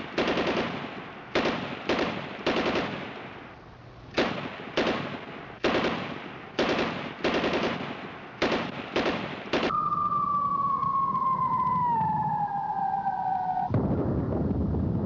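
A string of about a dozen single gunshots at uneven spacing, each with an echoing tail. About ten seconds in, a whistle falls slowly in pitch for about four seconds, then breaks off into a low rumble like an explosion.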